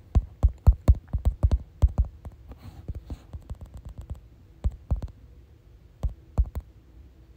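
Irregular light taps and soft thumps, coming quickly in the first two seconds and more sparsely after: handling noise while a Bible verse is being looked up.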